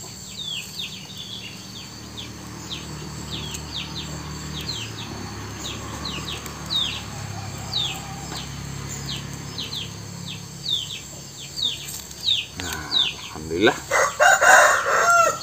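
A chicken calling loudly near the end, about two and a half seconds of rising and falling cries. Underneath, short high falling chirps repeat about twice a second throughout.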